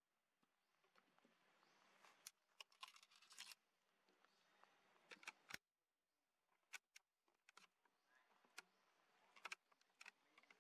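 Near silence, with faint scattered clicks and ticks over a light hiss.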